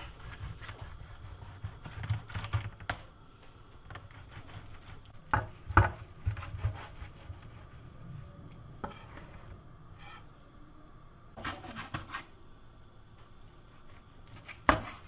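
Knife blade scraping and knocking against a metal baking tray while baked whole fish is cut open and its flesh scraped off the bones. Short scrapes and taps come in scattered clusters, the sharpest about a third of the way in and just before the end.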